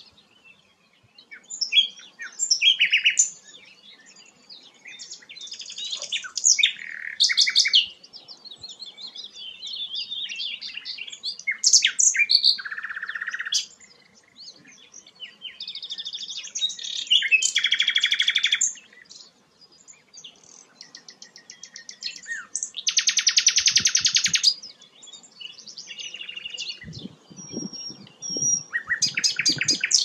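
Common nightingale singing: a string of varied phrases broken by short pauses, made of rapid repeated notes, trills and clear whistles. The loudest phrase is a harsh, very rapid trill about three-quarters of the way through.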